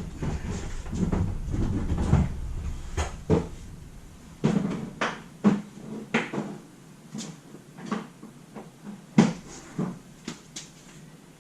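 Tools being rummaged through in a toolbox or drawers while a torque wrench is looked for: irregular knocks, clanks and clicks. A low rumble runs under them for the first four seconds or so.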